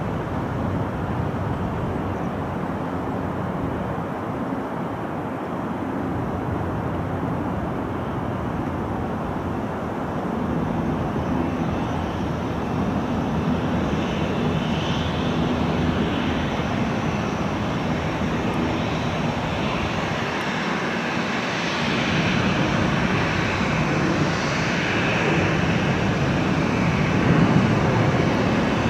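Boeing 737-800's twin CFM56-7B jet engines running at low power as the airliner taxis after landing, growing louder toward the end as it turns toward the microphone, with a higher engine whine coming up in the second half.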